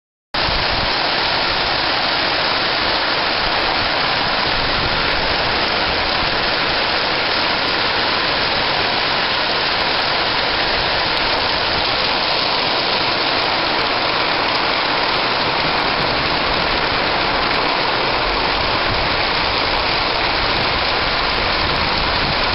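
Heavy storm rain falling steadily on the corrugated roof sheeting of a covered walkway, a dense, even hiss that cuts in abruptly about half a second in.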